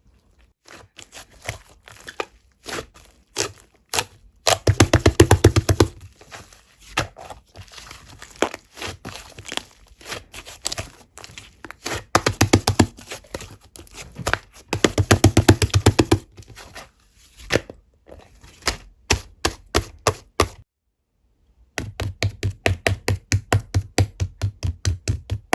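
Fluffy slime being squeezed and poked by hand: sticky clicks and small air-bubble pops, with several stretches of fast, continuous popping.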